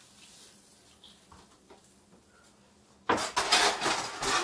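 A metal spatula scraping and stirring potatoes in a hot skillet, starting suddenly about three seconds in as a loud, scratchy run of strokes. Before that only a faint hiss.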